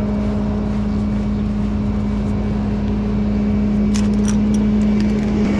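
Rollback tow truck's engine idling with a steady hum. A few sharp clicks about four seconds in, from the tie-down straps being released.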